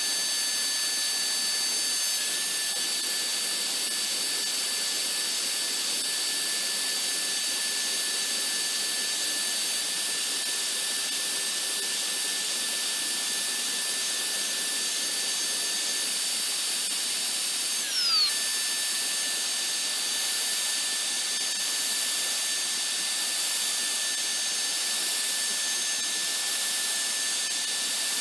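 Homemade CNC router's spindle running at high speed with a small end mill cutting into a wooden block: a steady high whine over a hiss. About two-thirds of the way in the pitch slides sharply down for a moment, then comes back.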